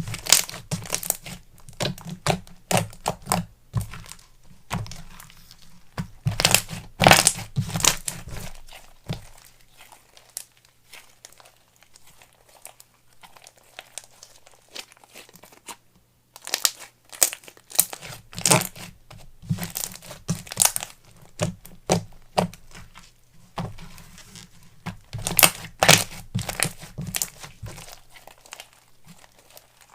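Slime being stretched, squeezed and pressed by hand, giving irregular runs of crinkly, crackling and tearing sounds. It is loudest in several spells and softer through the middle.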